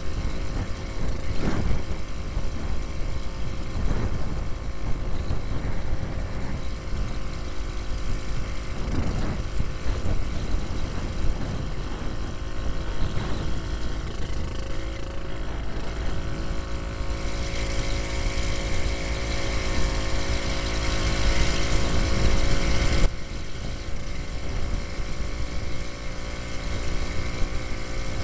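A 1939 James Autocycle's 98cc Villiers Junior two-stroke engine running steadily under way, with wind rumbling on the helmet-mounted microphone. A louder hiss builds over the middle stretch and cuts off suddenly a few seconds before the end.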